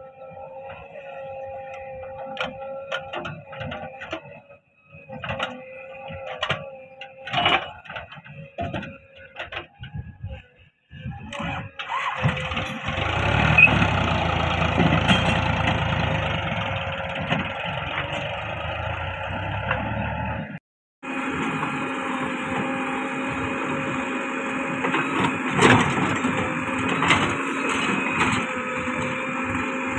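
Diesel engines of a JCB 3DX backhoe loader at work digging and a Sonalika tractor running, heard across several cuts. Steady engine tones with scattered clicks at first, then louder and fuller from about twelve seconds in, with a brief dropout about two-thirds of the way through.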